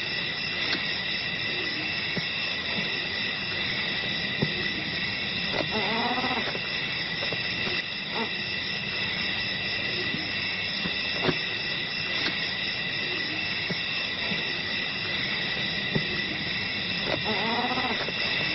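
Steady high-pitched chorus of night insects. An animal gives two short calls that rise and fall in pitch, about six and seventeen seconds in, with a few faint clicks between.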